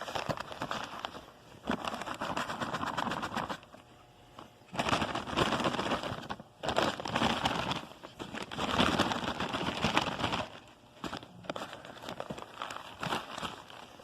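Rustling and crinkling in several irregular bursts, each a second or two long, with scattered clicks between them: a vacuum cleaner's paper dust bag being handled and opened to check what it has picked up.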